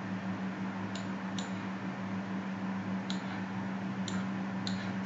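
Computer mouse clicking five times, short sharp clicks, the first two close together, over a steady low hum and hiss.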